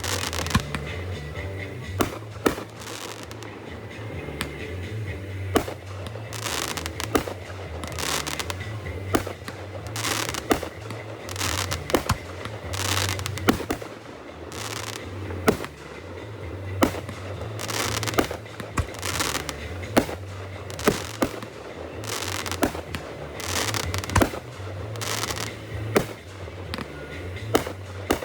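Fireworks display: sharp bangs every second or two, many followed by crackling as the shells burst.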